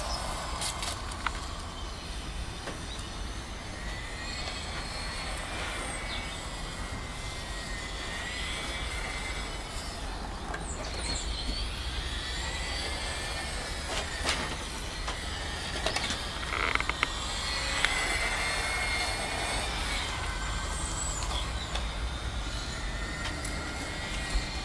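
Small electric 1/18-scale RC rally car's motor and gears whining, the pitch rising and falling as it speeds up and slows through the corners, over a steady low rumble, with a few sharp ticks midway.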